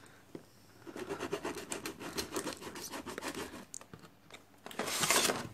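Scratching and rubbing of an action figure's packaging being opened by hand, a quick run of small scratchy clicks, then a louder scraping burst near the end.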